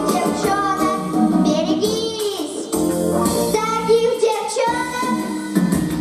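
An eight-year-old girl singing a pop song into a microphone over a pop backing track, holding long wavering notes about two seconds and about four seconds in.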